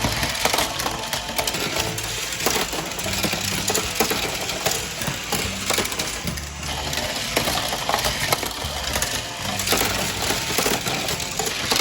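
Continuous rapid plastic clicking and clattering of toy vehicles running on plastic track: a battery-powered Plarail train and Tomica minicars on a Tomica Town course.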